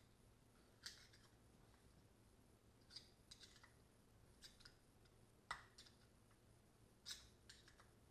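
Faint, irregular small clicks and ticks of a small screwdriver working against the metal parts of an Avid hydraulic brake lever being serviced, the sharpest click a little past halfway.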